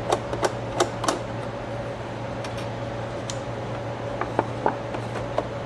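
Sharp clicks and light knocks from the slide-changer mechanism of a Reflecta 1002 slide projector as it is handled: several in the first second, a few more later. A steady mechanical hum runs underneath.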